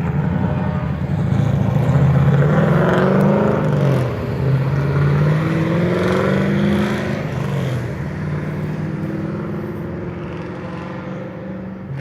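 Road vehicle engines accelerating past, their pitch climbing and dropping several times as they shift up, then fading towards the end.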